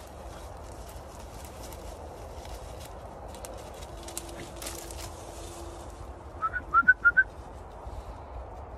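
Dry sticks and brush rustling and crackling as a working cocker spaniel puppy pushes through a stick pile. A little past halfway comes a quick run of about five short, high, rising chirps, the loudest sound here.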